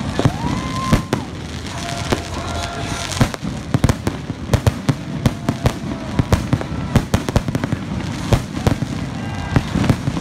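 Aerial fireworks display going off: many sharp bangs and crackles in quick succession.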